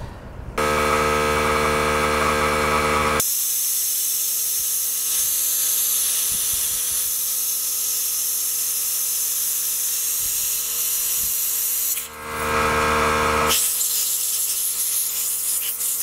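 Compressed air hissing steadily from a blow-gun nozzle as it is blown through the holes of a lawn mower carburetor body to clean them, in two long blasts with a short break about 12 seconds in. A motor runs underneath and is heard alone for the first few seconds and during the break.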